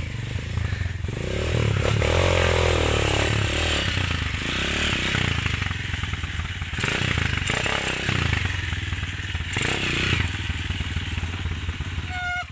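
Trail motorcycle's engine running under throttle while being ridden, revving up about a second in and then carrying on at varying speed.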